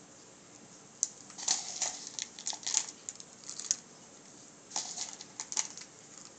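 Small chunks of leftover candle wax clicking and rattling against a small glass holder and each other as they are dropped in by hand, in two runs of quick taps, the second about five seconds in.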